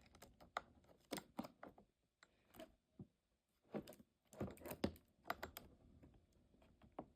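Faint, irregular clicks and light knocks of a mini chainsaw's small parts being handled during assembly, as the bar and chain are fitted and tightened.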